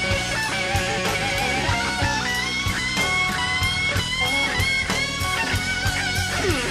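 Live slow blues band: an electric guitar solo of bent, wavering lead notes over bass and drums, with a quick slide down the neck near the end.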